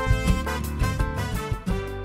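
Upbeat instrumental background music with pitched instruments, bass and percussion hits, growing quieter near the end.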